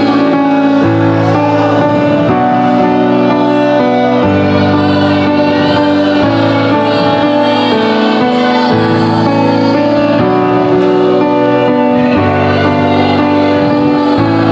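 Slow worship music: sustained chords held for about two seconds each before moving to the next.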